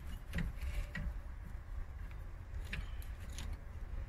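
A few faint metallic clicks and taps as a bolt is lined up by hand and started into the rear brake caliper, over a steady low rumble.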